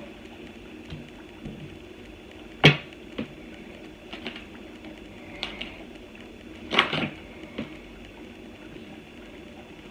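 Tarot cards and their deck box handled on a table: a few scattered sharp knocks and clatters with light card shuffling between them, the loudest knock a little under three seconds in and another a few seconds later.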